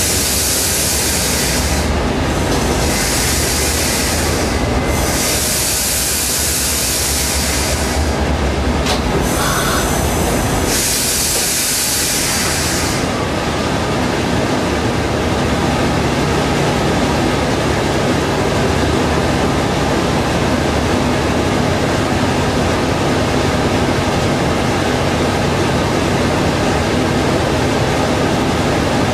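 Coaster commuter train heard from inside its leading cab car: a running rumble with several bursts of high hissing in the first half as it comes to a stop, then a steady drone while it stands.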